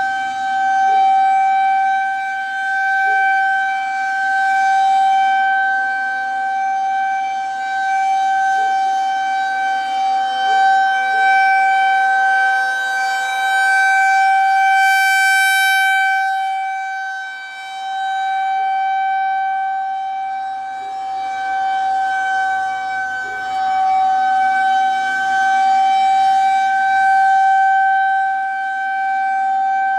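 Outdoor tornado warning siren sounding a steady alert tone during a scheduled test: one unchanging pitch whose loudness swells and fades, sounding brightest and fullest about halfway through.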